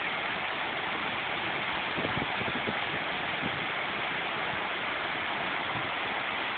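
Whitewater rushing and churning steadily over rocks, an even roar of fast-flowing water.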